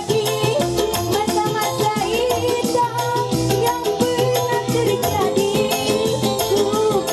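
Music with a steady, fast percussion beat under a wavering melody line.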